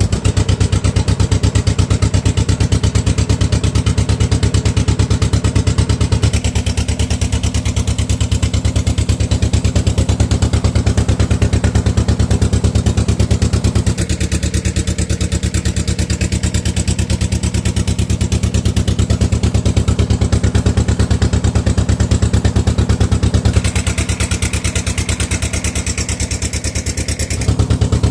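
Boat engine running steadily, with a fast, even beat.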